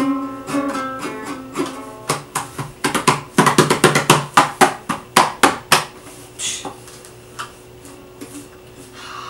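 Ukulele played by hand: a few plucked notes left ringing, then a run of fast strums from about two seconds in, thinning to a few quiet strokes near the end.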